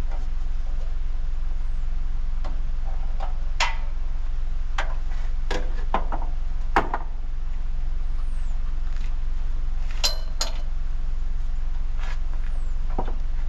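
An engine running steadily with a low hum, over which come scattered clunks, knocks and metallic clinks from gear being handled and unloaded, the sharpest about seven seconds in.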